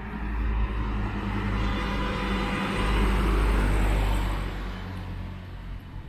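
A car passing on the road, its noise swelling to a peak about halfway through and then fading away.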